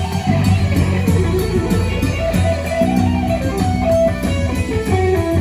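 Recorded guitar music playing at a steady, fairly loud level through a vintage hi-fi: Celestion Ditton 442 loudspeakers driven by a Sansui 9090 stereo receiver.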